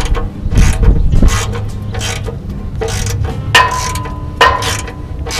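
Socket ratchet clicking in short repeated strokes, about two a second, as it tightens the oil drain plug back into a 1994 Ford Bronco's oil pan. Some strokes carry a brief metallic ring.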